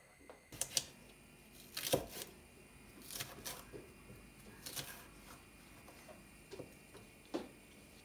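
Scattered light clicks and knocks, about seven over the stretch, with the loudest knock about two seconds in and a small cluster a little after three seconds.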